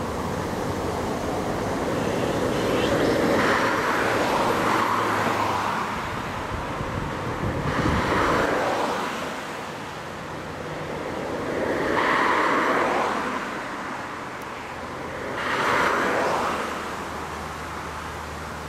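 Cars passing one after another on the road. Each pass is a swell of tyre and engine noise that rises and fades, four times in all.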